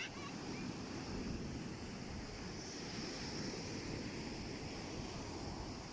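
Sea waves washing in, with wind blowing across the microphone: a steady, even rush of noise.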